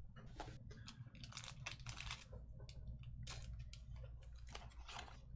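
Faint, irregular clicks and soft flicks of trading cards being handled and flipped through, over a low steady hum.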